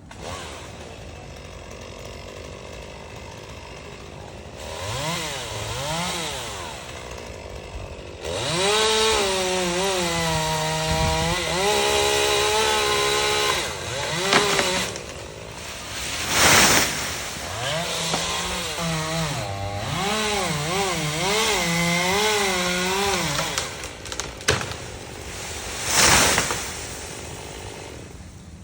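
Gas chainsaw cutting mango wood, its engine speed rising and falling as the chain bites and eases off. Twice, a short, loud burst of noise cuts through.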